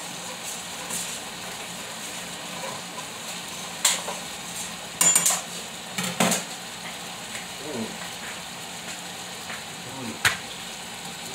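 Beef strips for pepper steak sizzling steadily in a skillet. Several sharp clinks and knocks of kitchenware sound over it, with a quick run of ringing clinks about five seconds in.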